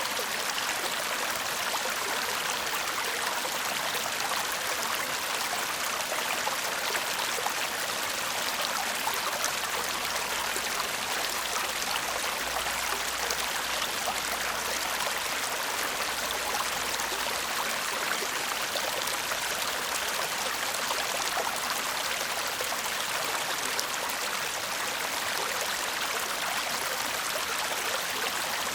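A shallow stream babbling and gurgling steadily over stones.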